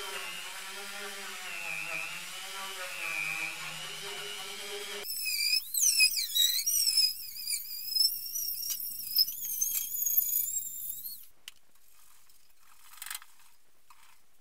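Flexible-shaft rotary tool running a small bit against a steel fuel tank, its whine wavering as the bit bites into the old undercoating. About five seconds in this gives way abruptly to high-pitched squeaking and sharp scraping. That stops a little after eleven seconds, leaving a few faint clicks.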